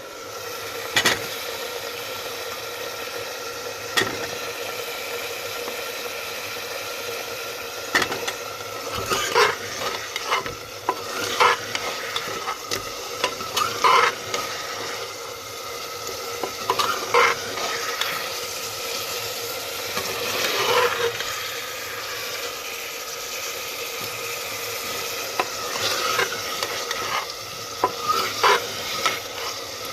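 Potatoes and soybean mince sizzling steadily in oil in a pan while a spoon stirs them, with sharp scrapes and knocks of the spoon against the pan every few seconds.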